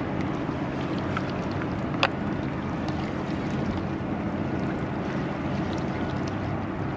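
Steady wind noise on the microphone with a low drone underneath, and one sharp click about two seconds in.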